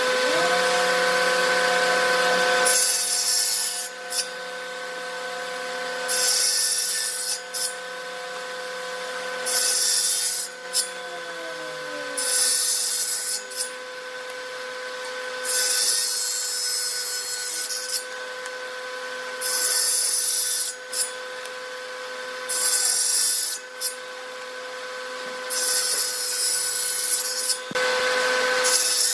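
Table saw running steadily and crosscutting wooden strips on a sled about nine times, each cut a hiss of a second or two every three seconds or so. A second motor starts at the outset and winds down, falling in pitch, about eleven seconds in.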